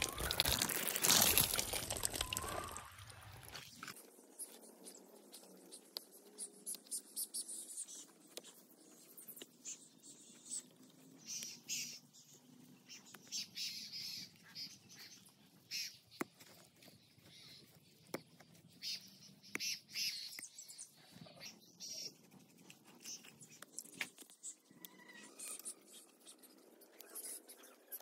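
Water splashing down onto a wooden slatted bench for about the first three seconds. This gives way to quieter scattered crackles and soft clicks from hands working a lump of wet mud around the base of a sapling.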